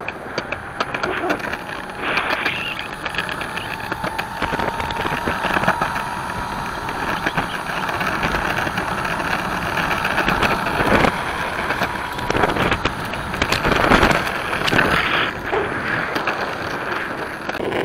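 Electric skateboard rolling along a concrete path: a steady rumble from its 90 mm urethane wheels and a faint whine from the belt-driven electric motor, rising a little in pitch over the first few seconds as it speeds up. A couple of sharp clacks come about eleven and fourteen seconds in.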